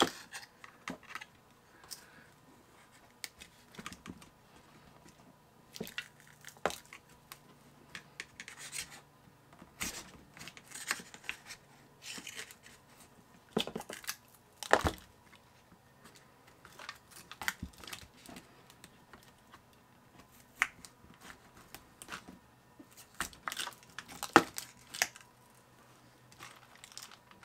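A thin pry tool scraping and prying under the adhesive strips that hold down the battery of a 2015 15-inch MacBook Pro, the tape tearing loose in short, irregular scrapes and clicks.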